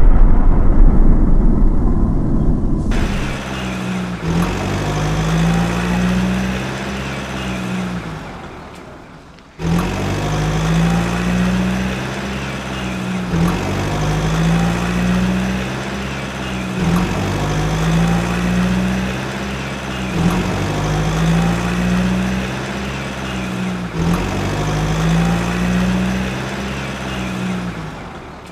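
A deep boom dies away, then a cartoon vehicle engine sound effect runs in a loop, repeating about every three and a half seconds. It fades out twice, once partway through and once near the end.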